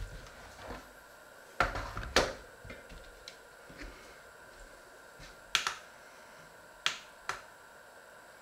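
Sharp clacks and knocks as a stainless steel mixing bowl and a digital kitchen scale are set down and handled on a wooden board: about five separate hits, the loudest about two seconds in.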